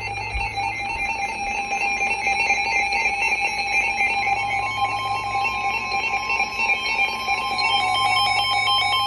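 Emergency Alert System attention signal: a loud, steady, harsh two-tone alarm tone that announces an incoming weather warning broadcast.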